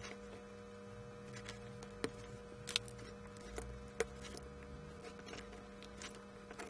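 A few faint clicks and taps from a small metal rotary encoder being handled and turned over in the fingers, over a steady low hum.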